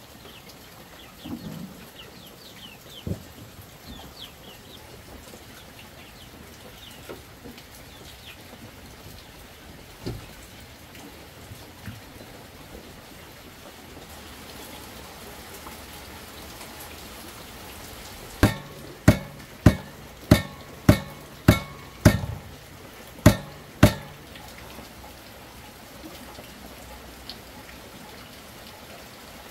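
Steady patter of light drizzle with birds chirping in the first few seconds. Later comes a run of about ten sharp knocks, roughly two a second, each with a brief ringing note; these knocks are by far the loudest sounds.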